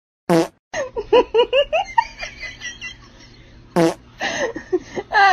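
Two short fart sound effects, about three and a half seconds apart, with a voice laughing and chattering in quick syllables between and after them.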